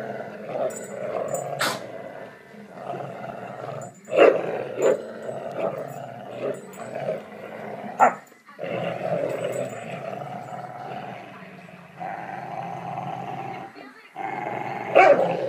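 Dogs growling in play while tugging on a rope toy: long, steady stretches of growling, broken by a few short, sharp sounds about four and eight seconds in and again near the end.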